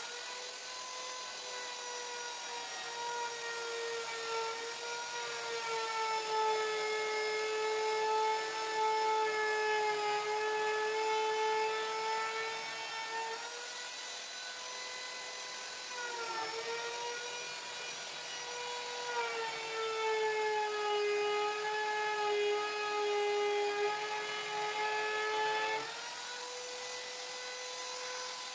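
Handheld electric plunge router running continuously as it cuts across an epoxy-and-wood tabletop. Its steady high whine sags in pitch through long stretches while the bit is cutting, dips briefly about halfway, and rises back near the end as it quietens.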